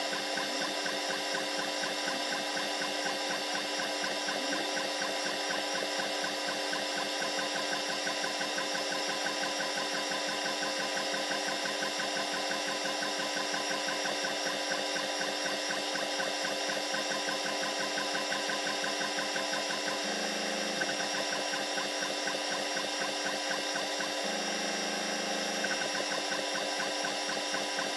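Laser engraver running an engraving pass: a steady machine whine made of several constant tones with a fast, even pulsing, and brief changes in the low hum twice in the second half.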